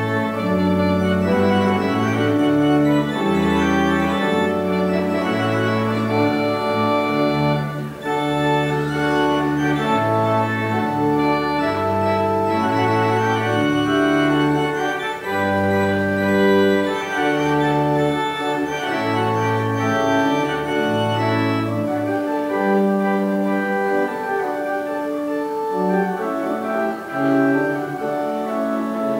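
Organ playing sustained chords over a moving bass line, the notes changing about once a second.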